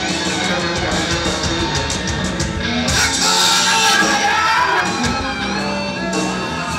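Live rock band playing: electric guitar, drums and wind instruments, with a man's voice shouting over the music from about three seconds in.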